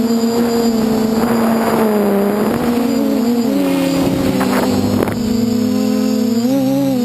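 DJI F450 quadcopter's four brushless motors and 8-inch propellers in flight, heard from the onboard camera: a steady buzzing hum of several close tones that shifts in pitch as the throttle changes, stepping up about halfway through and rising briefly near the end, over wind rush on the microphone.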